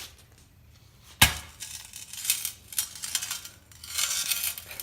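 A sharp knock about a second in, then rough, uneven scraping of a tool against an iPhone 11's cracked glass, a grating sound like fingernails on a chalkboard.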